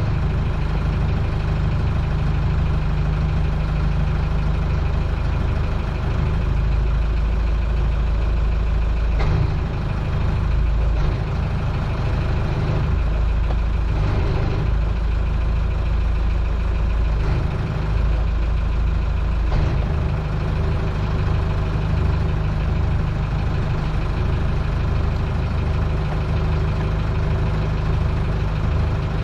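Towboat's engine running steadily at low speed, with a strong low hum, while towing a large yacht on a line.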